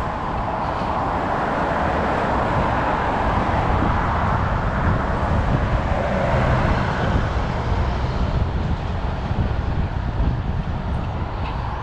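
Road traffic passing along a multi-lane city avenue, heard from a moving bicycle with wind rumbling on the microphone. The traffic noise swells about halfway through as a coach bus passes close alongside.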